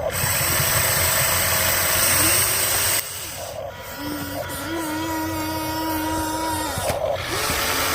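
Small electric motors of a radio-controlled excavator and dump truck whining: the pitch rises, holds and falls back several times. A louder gritty noise fills the first three seconds and returns near the end.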